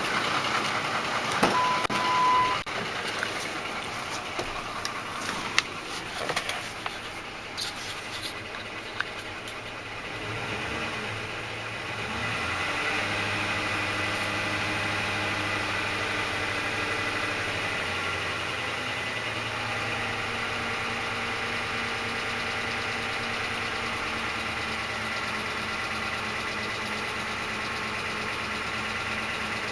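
2004 Ford F-150's 5.4-litre three-valve V8, starting about ten or twelve seconds in and then idling steadily, preceded by a few clicks and a short beep. Its tapping/slapping comes from the timing chains slapping against the engine block because the chain tensioners have failed, with worn cam phasers.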